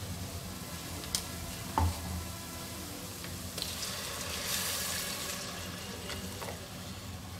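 Tomato juice poured into hot oil and fried onions in an aluminium pressure cooker. It sizzles as it hits the pan, loudest about halfway through. Two sharp clicks come earlier, about one and two seconds in.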